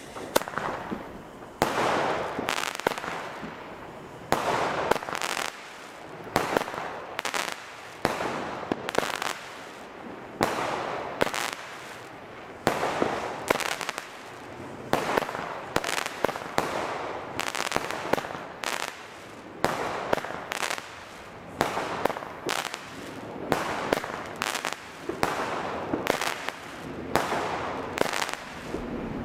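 Weco Tristan 19-shot, 20 mm consumer firework battery firing: shots launch and burst in quick succession, roughly one every second or so.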